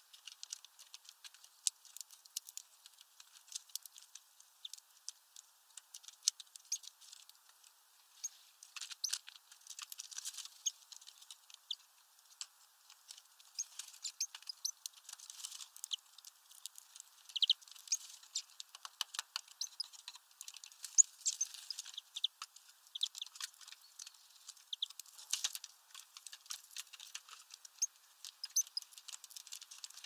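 Irregular light tapping and clicking of great tits pecking at a hanging seed ball, the taps bunching more thickly about halfway through.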